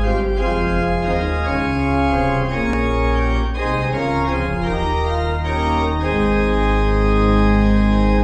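Organ music playing slow, sustained chords that change every second or so.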